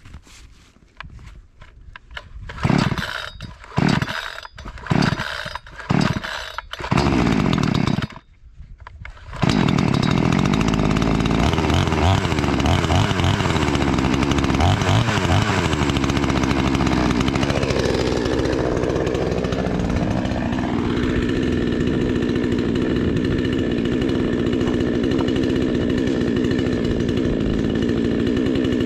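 Cold start of a cheap two-stroke chainsaw with its base gasket removed: several short bursts about a second apart as it is pulled over and fires briefly, then it catches about nine seconds in and keeps running. The engine speed dips and climbs back once a little past halfway, then holds steady.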